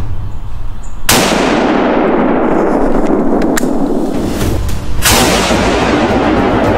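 Two loud rifle-shot booms about four seconds apart, each cutting in suddenly and followed by a long, steady rush of noise rather than a fading echo.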